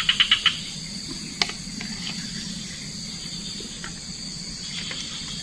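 A steady chorus of insects shrilling high in the background. Right at the start a quick run of about five short, loud chirps, and about a second and a half in a single sharp click.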